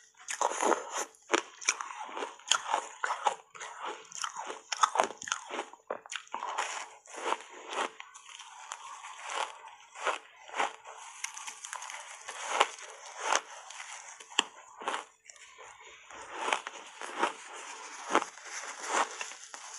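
Close-miked crunching of refrozen block ice coated in matcha powder being bitten and chewed: a dense, irregular run of sharp crunches.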